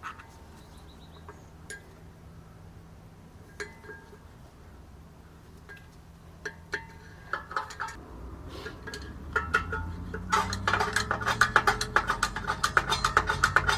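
Hand tools clinking against the rear brake and parking-brake hardware in a few separate taps, then from about ten seconds in a fast, steady run of ratcheting metallic clicks that gets louder.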